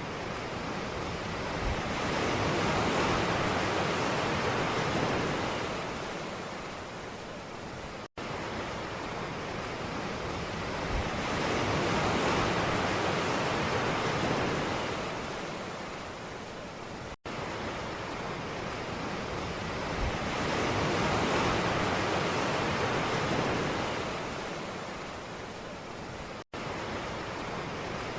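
Ocean waves washing in, a steady hiss of surf that swells and fades in slow surges about every nine seconds. The sound cuts out abruptly for a split second three times, just after each wave dies down.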